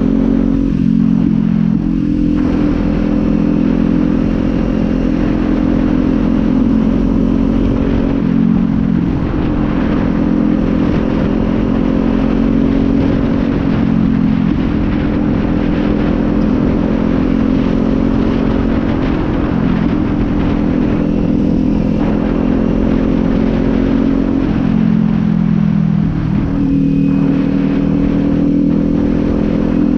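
Kawasaki Z400's parallel-twin engine running while the motorcycle is ridden, its note holding steady for stretches and then changing pitch several times as the rider shifts gears and changes throttle.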